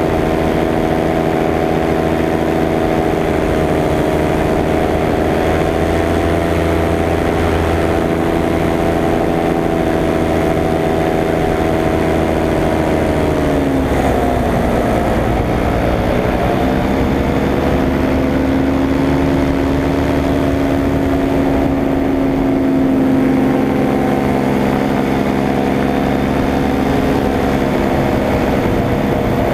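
Paramotor engine and propeller running steadily; about halfway through its pitch drops quickly as the throttle comes back, then it holds at a lower, steady drone.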